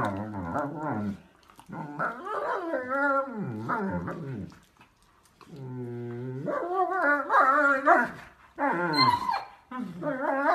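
German Shepherd dogs play-fighting, growling and whining in about five drawn-out bouts of wavering pitch, with short pauses between.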